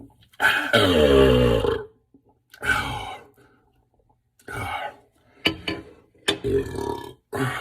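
A man's long, loud belch about half a second in, lasting over a second with a wavering pitch, followed by several shorter, quieter bursts. It is gas brought up from the carbonated drink he has swallowed.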